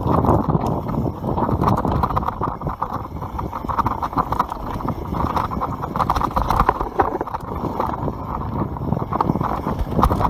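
YT Capra full-suspension mountain bike descending a rough dirt trail at speed: tyres on dirt and stones and the bike's parts clattering in a fast, uneven rattle.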